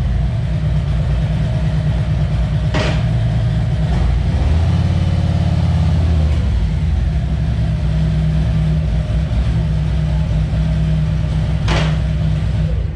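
Harley-Davidson Road Glide Ultra's Milwaukee-Eight V-twin idling with a loud, steady low pulse. Two short sharp sounds cut in, about three seconds in and near the end.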